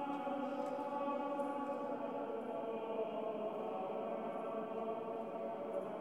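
Church choir chanting in long held notes that shift slowly in pitch, with a new phrase starting at the very beginning.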